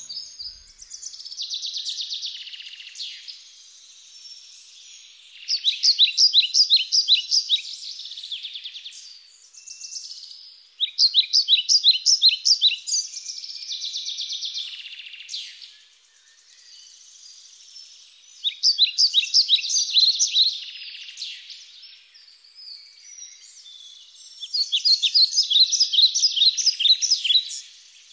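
Birdsong: a songbird singing fast, high trills of rapid notes in four loud bouts a few seconds apart, with fainter chirping between them.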